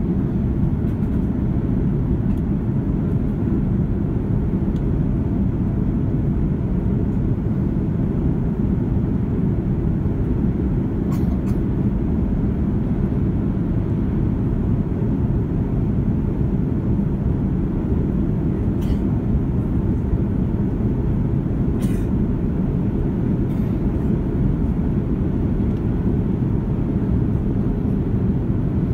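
Steady low rumble of an Airbus A330's engines and rushing air, heard inside the cabin during the climb after takeoff. A few faint clicks show over it.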